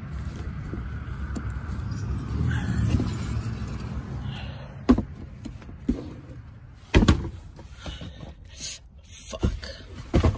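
A low rumbling hum, then a string of sharp knocks, the loudest about seven seconds in and another near the end: a heavy Infiniti G35 car door slamming onto a man's leg. Short pained exclamations follow.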